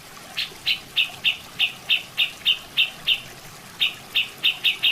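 Cucak jenggot (grey-cheeked bulbul) calling: a string of short, sharp, high notes at about three a second, breaking off briefly partway through, then coming quicker near the end.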